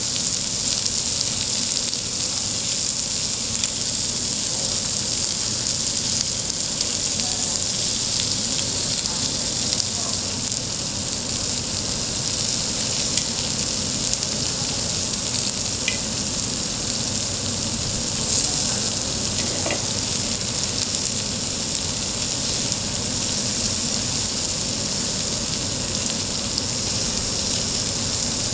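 Food sizzling steadily on a hot cast-iron cauldron lid, with a few faint ticks.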